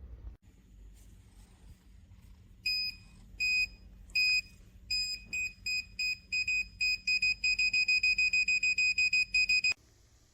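An electronic beeper sounding a single high tone. The beeps start a few seconds in, widely spaced, then quicken to several a second and cut off abruptly near the end.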